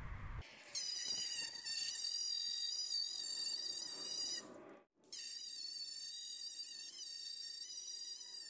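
Cordless angle grinder running with a steady high whine as its disc works old paint off a steel body panel. It breaks off for a moment about halfway through and starts again.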